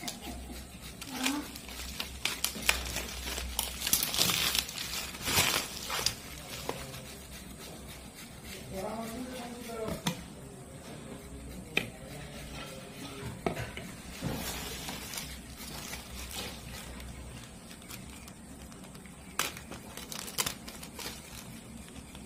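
Plastic bubble wrap and packaging crinkling and crackling as it is handled and peeled off bottles, thickest in the first several seconds and then in scattered bursts. A short stretch of a voice comes in the middle.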